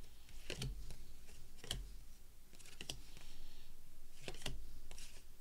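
Baseball cards being flipped through by hand, one at a time from one stack to the other: irregular sharp clicks of card edges, roughly one a second, with a soft rustle of cardstock sliding over cardstock.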